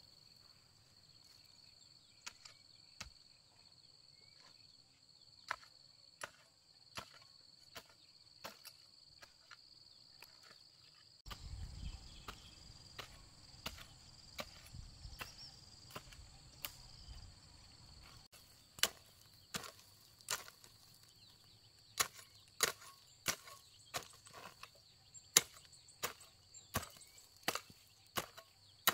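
Wooden-handled hoe chopping into dry garden soil in repeated strokes. The strokes are sparse and light at first, then sharper and more regular in the last third, about one to two a second. A steady high insect buzz runs throughout, and a low rumble comes in for several seconds in the middle.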